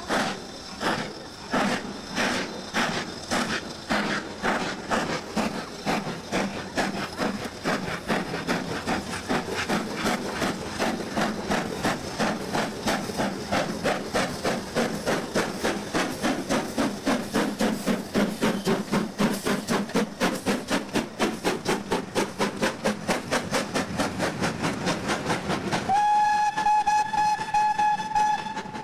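BR Standard Class 4 2-6-4 tank steam locomotive 80079 accelerating a train, its exhaust beats quickening steadily as it gathers speed. Near the end it sounds one long, steady blast on its whistle.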